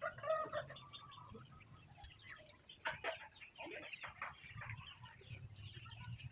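Faint bird calls, loudest in a short burst at the start, with a single sharp knock about three seconds in.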